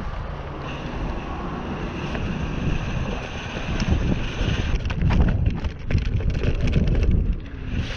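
Wind buffeting the microphone over the rumble of a mountain bike rolling along a dirt trail. A high hiss runs through the first half. From about five seconds in come many short rattling knocks as the bike goes over rougher ground.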